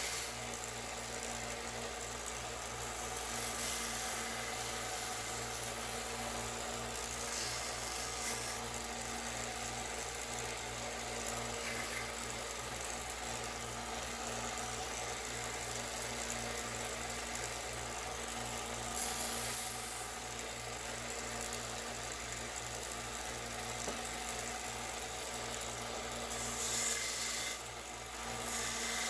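Small benchtop belt sander running steadily with a motor hum, its belt sanding a 3D-printed TPU plastic part with a hissing rasp. The hiss briefly brightens several times as the part is pressed to the belt.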